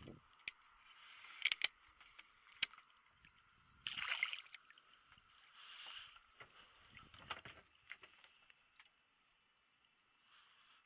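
Light knocks and clicks of fishing gear being handled, with a louder clatter about four seconds in, over a steady high-pitched hiss.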